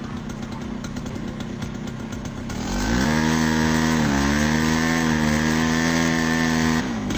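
Chainsaw engine idling, then throttled up quickly to full revs and held there for about four seconds with a brief dip, then let off so the pitch falls back down near the end.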